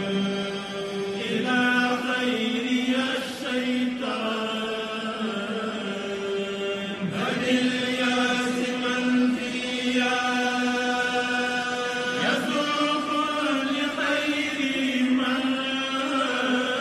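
A voice chanting in long, drawn-out notes that step between a few pitches, with short breaks every few seconds: Islamic religious chanting.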